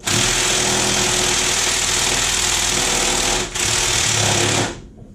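A power tool runs in one long, loud burst with a fast mechanical rattle, breaking off briefly about three and a half seconds in and stopping just before the end.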